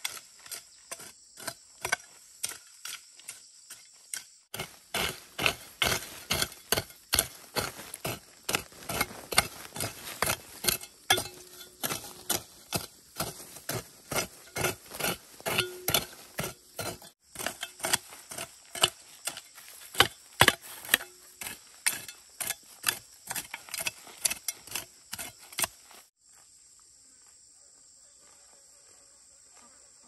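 A hoe chopping into soil and weeds, about two strikes a second, louder and closer from about four seconds in, stopping near the end. A steady high insect drone runs behind it and is left on its own once the chopping stops.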